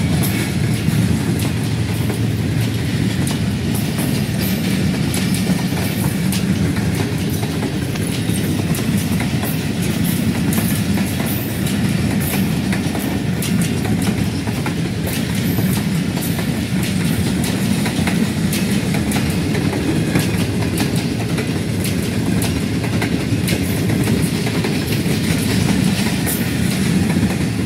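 Pakistan Railways passenger coaches of the Karakoram Express rolling past fairly slowly: a steady rumble of wheels on rail with repeated clicks as the wheels cross the rail joints.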